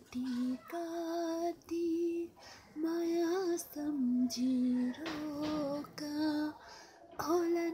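A woman singing a Nepali song solo, in phrases of long held notes with short breaks between them.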